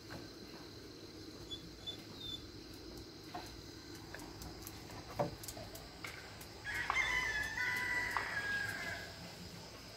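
A rooster crowing once, one call of about two seconds in the second half.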